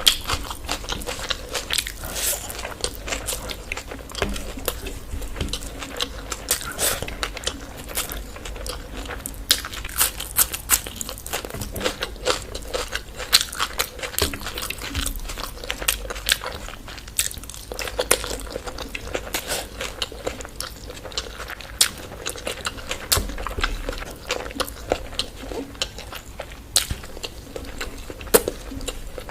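Close-miked eating: a person biting and chewing a meal of chicken curry and biryani, with quick wet smacks and crunchy clicks several times a second.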